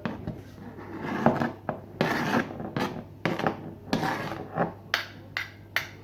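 Kitchen utensils scraping and knocking against wood and dishes: irregular rubbing strokes of a fraction of a second each, mixed with short sharp knocks, over a faint steady hum.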